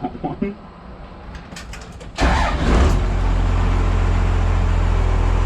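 A vehicle engine starts about two seconds in, catching quickly with a loud burst, then settles into a steady low idle.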